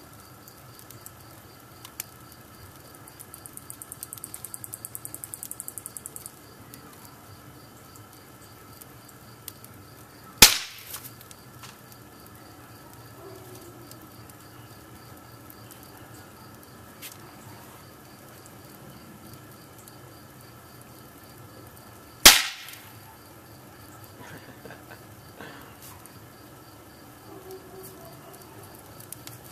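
Wood fire burning in a fireplace, with faint occasional crackles and two sharp, loud pops about ten and twenty-two seconds in. A cricket-like insect trills in fast even pulses for a few seconds early on.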